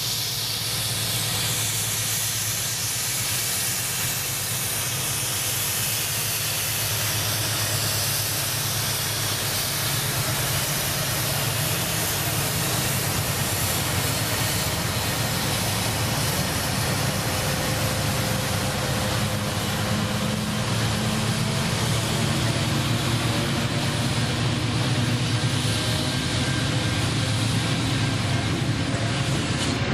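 Pacific National NR-class GE diesel-electric locomotives passing under power as they climb away up a gradient: a deep engine drone with a strong hiss over it, growing slightly louder in the second half as the following locomotives come by.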